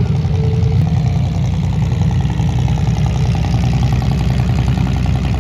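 Compact demolition-derby car's engine idling steadily, a fast even pulse of firing strokes with no change in pitch.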